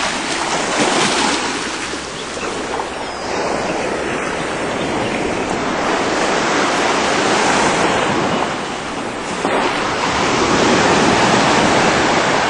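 Sea surf washing onto a beach: a steady rush of noise that swells and eases every few seconds as the waves come in and draw back.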